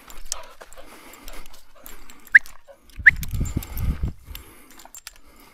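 Steps crunching on a gravel path under scattered small clicks. About two and three seconds in come two very short, sharp rising squeaks, a handler's attention sound to make the dog notice him. A low rumble follows at about three to four seconds.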